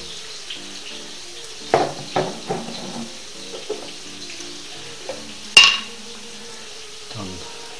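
Kitchen handling sounds: a cluster of knocks from jars and dishes moved on the counter about two seconds in, then one sharp, ringing clink of a glass jar about halfway through. The jar is the sweet mustard being fetched and opened.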